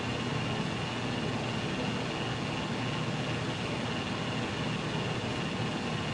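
Steady background hiss and low hum with a faint constant high whine, at an even level throughout; no distinct clicks or knocks of the lock stand out.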